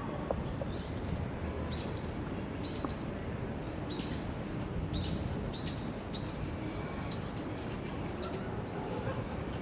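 A songbird calling: a run of about nine short, quickly rising chirps, then three longer level whistles in the second half, over steady background noise.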